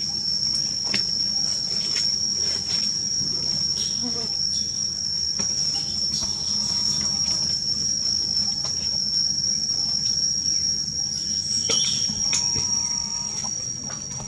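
Insects droning: one steady, unbroken high-pitched whine, with scattered faint clicks and ticks over it.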